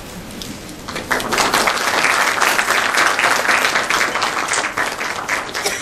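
Audience applauding as an award certificate is handed over, building up about a second in and dying away near the end.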